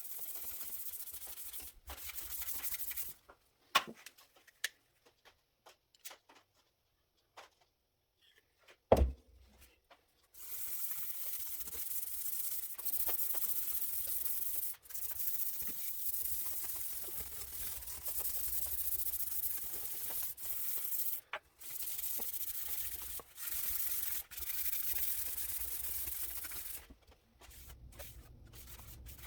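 Abrasive rubbing on the steel vise parts during cleanup, in long strokes of a second or more with brief pauses, and two sharp knocks in the first few seconds.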